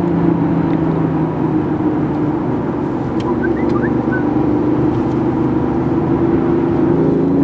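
BMW i8's turbocharged petrol engine running while the car drives, a steady engine note that dips slightly in pitch midway and climbs again near the end.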